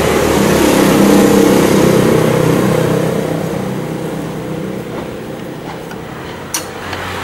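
A motor vehicle's engine running, loudest in the first couple of seconds and slowly fading, with one sharp click about six and a half seconds in.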